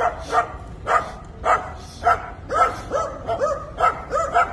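Dogs barking again and again, about two barks a second.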